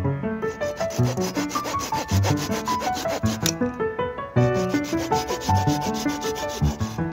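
A knife blade sawing back and forth across a dry stick to cut it, in quick, even scraping strokes: two runs with a short break near the middle. Background music plays throughout.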